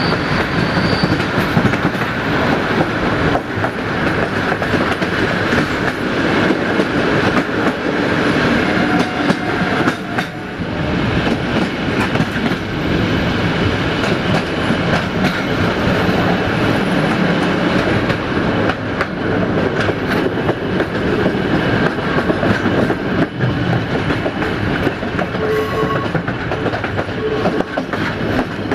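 Train running along the track, a steady rolling rumble with the clatter of wheels over the rails.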